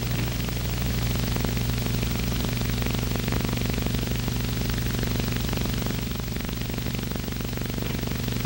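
Steady hiss and a low, even hum from a worn old film soundtrack, with faint crackle; no other sound stands out.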